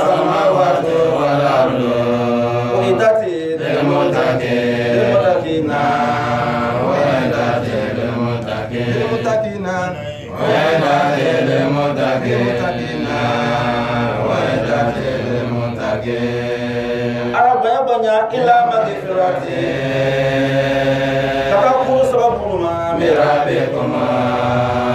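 A man's voice chanting an Islamic verse in long, melodic held phrases, with a short break for breath about ten seconds in.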